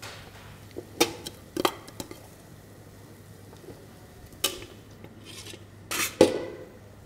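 Metal spoon knocking and scraping against a stainless steel cooking pot as rice is scooped out. A few sharp clinks come at intervals, and the loudest cluster is near the end.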